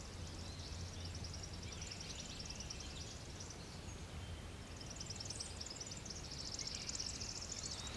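A songbird's rapid high trill, repeated several times and loudest in the last few seconds, over a low steady background rumble.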